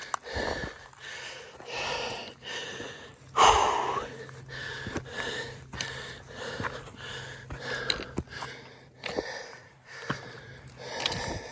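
Heavy breathing of a hiker climbing a steep trail: quick, regular breaths, with one loud puff of breath a few seconds in. Footsteps on the dirt path sound between the breaths.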